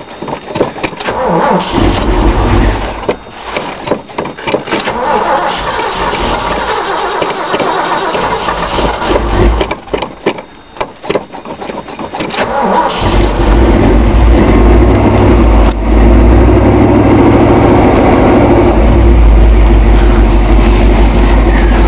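1978 Ford Bronco's 460 big-block V8 cranking cold, without the choke, sputtering and firing unevenly for about twelve seconds, then catching about thirteen seconds in and running loud and steady.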